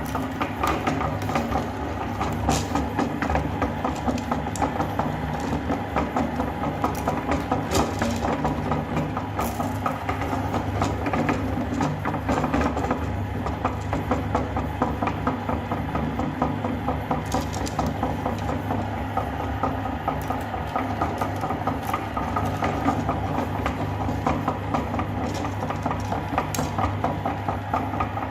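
Electric meat grinder motor running steadily with a low hum while grinding fruity candy, with rattling and occasional sharp cracks from the hard pieces.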